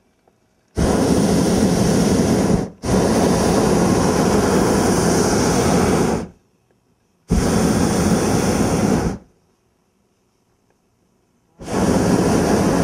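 Hot-air balloon's propane burner firing in blasts of a few seconds each, cutting in and out sharply: two long burns back to back, then two shorter ones with quiet gaps between.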